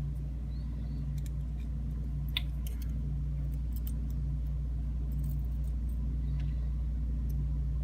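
Faint, scattered metallic clicks and taps of small lock parts, the pins and springs of a Kwikset lock cylinder, being handled and pushed out with tools during disassembly, over a steady low hum.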